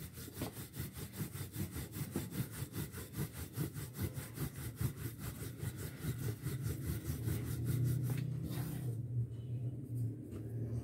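Wooden rolling pin rolled quickly back and forth over paratha dough on a plastic sheet, a fast rhythmic rubbing that stops about nine seconds in.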